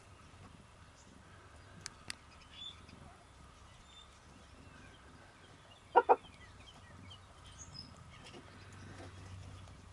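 Two short, loud animal calls in quick succession about six seconds in, over a quiet background with faint high chirping. Two sharp clicks come about two seconds in.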